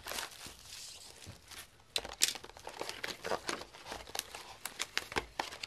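Packaging crinkling and rustling with irregular sharp crackles and a little tearing, as sealed trading-card boxes are unwrapped and handled.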